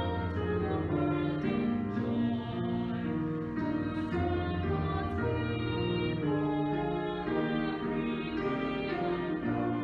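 Hymn music: long held chords with a melody line moving over them, changing every second or two.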